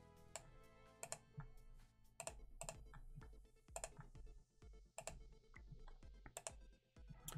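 Faint background music with a steady beat, under a scattering of sharp computer keyboard and mouse clicks.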